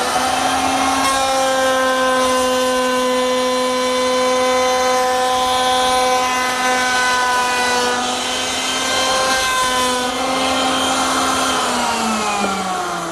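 A stationary woodworking power tool running at full speed with a steady whine as a board is fed through its cutter. Near the end it coasts down, the whine falling in pitch.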